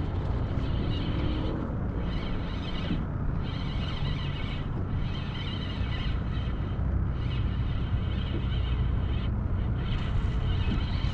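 Fishing reel being cranked in repeated spurts with short pauses while a hooked speckled trout is brought in, over steady wind noise on the microphone.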